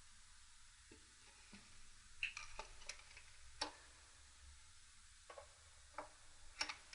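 Faint, scattered light clicks and taps of hand tools and small metal parts being handled on a motorcycle engine, a dozen or so irregular ticks with quiet between them.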